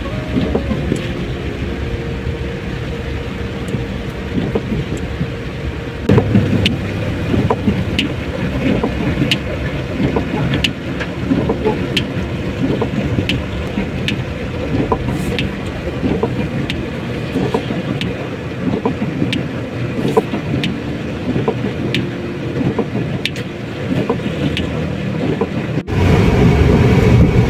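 Car cabin while driving on a wet road in heavy rain: steady road and engine noise with tyres on wet asphalt, and scattered sharp ticks against the windshield. The sound cuts off abruptly near the end and is replaced by a louder, different background.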